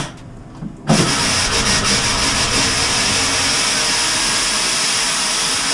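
Compressed air rushing out of a shower opened on its cold side, a loud steady hiss that starts about a second in. The pressurized air is purging the remaining water from the line to winterize the plumbing.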